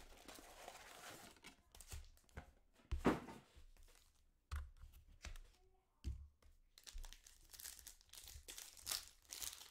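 Tearing and crinkling of a trading-card hobby box and its foil card packs being opened and handled, with a few knocks as packs are set down on the table. The crinkling gets busier over the last few seconds.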